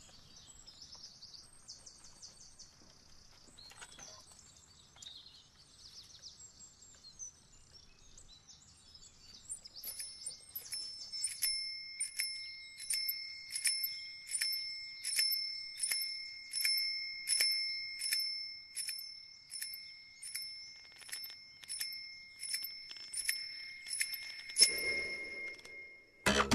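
Birds chirping, then from about ten seconds in a dome signal bell rings in a steady series of single strikes, about one and a half to two a second, each ring fading before the next. A sharp knock comes just before the end.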